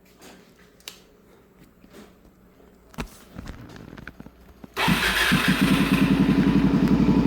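A Suzuki DRZ400SM's single-cylinder four-stroke engine starts about two-thirds of the way in, after a few clicks and a knock, and settles into an idle with an even, rapid thumping exhaust beat. The exhaust is a Yoshimura full system with a homemade baffle insert in its outlet, which lowers the volume without taking the tone out.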